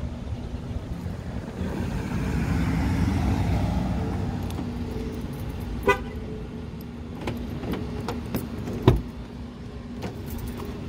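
Wind on the microphone and a steady low hum in a parking lot, a short clicking chirp about six seconds in, then a sharp thump near nine seconds as a Ford Edge SUV's driver door is opened.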